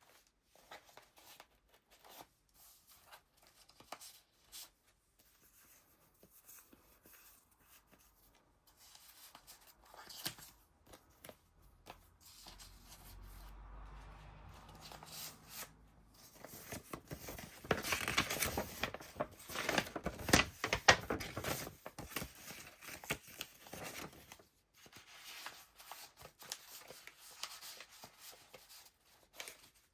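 Paper pages of a handmade junk journal being turned and handled: soft rustling and crinkling with small taps, busier and louder for several seconds past the middle.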